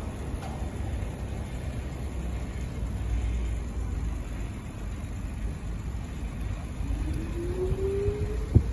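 Low, steady rumble of city street traffic and riding noise heard from a moving bicycle. Near the end a rising whine climbs for about a second and a half, cut off by a single sharp knock.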